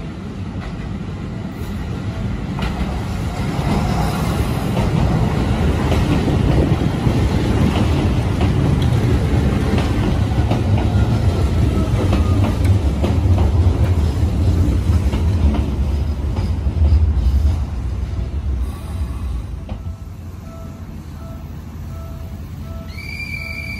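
Electric commuter train pulling into a station: its rumble and the clicking of its wheels build up, are loudest as it runs along the platform, then die away as it brakes to a stop about twenty seconds in. Near the end a faint beep repeats about once a second.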